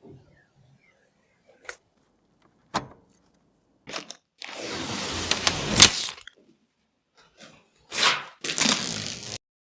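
Hands handling PC parts: scattered sharp clicks and knocks, with a longer stretch of rustling or scraping about four seconds in and a shorter one near the end.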